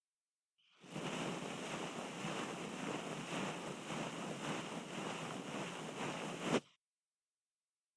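Ear-cleaning strokes rubbing against a binaural microphone's ear, a close, dense scratchy rustle in even strokes about twice a second. It starts about a second in and cuts off suddenly near the end.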